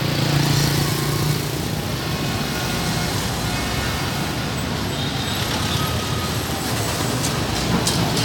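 Dense street traffic of motorbikes and cars running steadily, engines and tyre noise, with a stronger engine hum about a second in.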